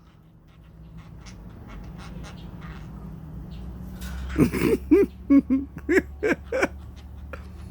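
A pet bird giving a quick run of about eight short, rough calls about halfway through, after a few seconds of faint scattered clicks.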